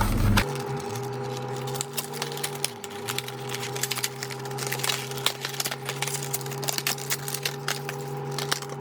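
Irregular clicks, taps and crinkles of a new refrigerator water filter and its plastic packaging being handled and unpacked, over a steady low hum.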